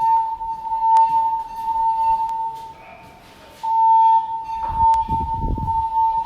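Fire alarm voice-evacuation speaker sounding a steady, high-pitched alert tone, the signal that alternates with the recorded evacuation message; it breaks off for about a second near the middle and then resumes. A brief low rumble comes about five seconds in.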